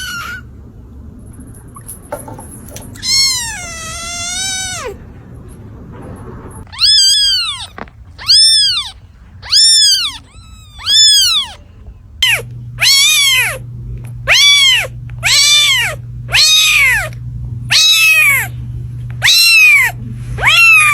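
Cat meowing: one long meow with a wavering pitch, then a run of short meows that rise and fall in pitch. The meows repeat about once a second in the second half, over a steady low hum.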